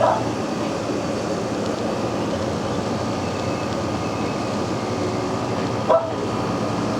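Air-conditioning unit running with a steady hum and hiss, and a brief short squeak near the end.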